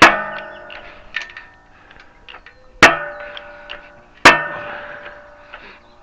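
Hammer blows driving a wheel bearing into a car's steering knuckle: three hard metallic clangs, each ringing on and dying away, with a few lighter taps between them.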